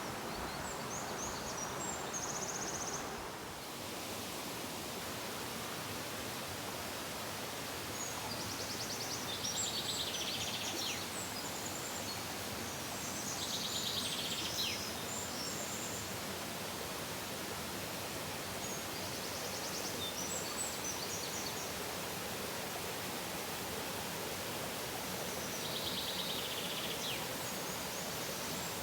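A songbird singing short, high phrases, five of them about five or six seconds apart, over a steady outdoor hiss.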